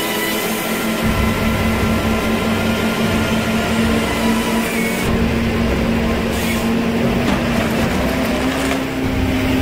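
Forestry harvester working a felled log: its engine and hydraulics run steadily with a constant whine while the harvester head feeds the stem and its chain saw cuts through it.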